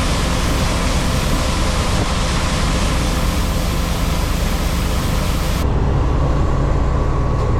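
Farm machinery engine running steadily under a loud hiss. A little past halfway the hiss cuts off suddenly and a lower, even drone carries on.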